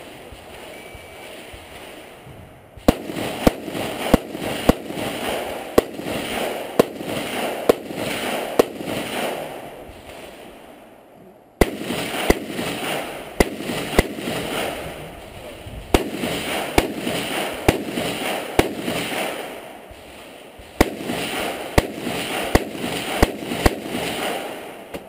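AR-15-style semi-automatic rifle fired in three quick strings of shots, roughly a dozen sharp reports in each, with short pauses between strings; the echo of the reports runs on between shots and fades at the end of each string.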